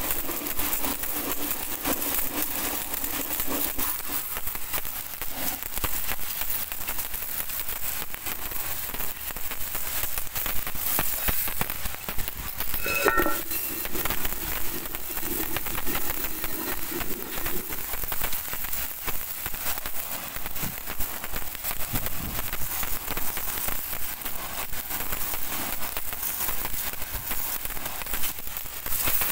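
Pressure washer jet spraying onto a wheel and tyre, then onto brake drums: a steady hissing spray of water with a fine spatter.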